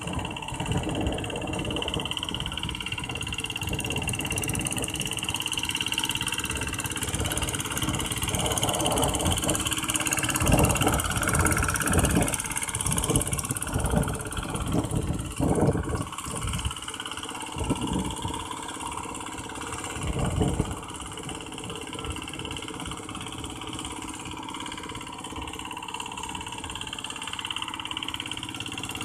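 Single-cylinder diesel engine of a two-wheel hand tractor running under load while plowing a flooded rice paddy, a steady chugging with louder surges in the middle.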